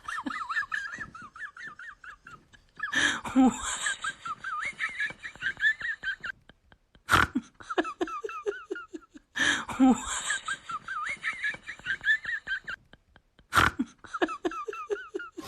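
High-pitched, fast-wavering laughter, the same passage heard twice, each time followed by a sharp click.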